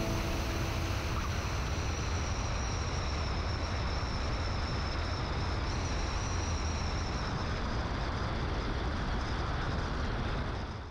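Cessna 175's engine and propeller running at low power on the landing rollout, under steady wind rush on an outside-mounted microphone. A faint high whine drifts slowly lower, and it all fades out near the end.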